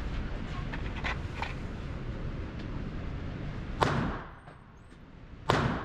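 Two gunshots about a second and a half apart in an indoor shooting range, each with a short echo, over a steady low rumble.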